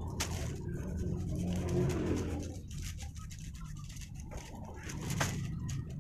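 Knife slicing and scraping through the rough, knobbly rind of a Thong Prasert jackfruit in irregular strokes, pausing about halfway through, over a steady low hum.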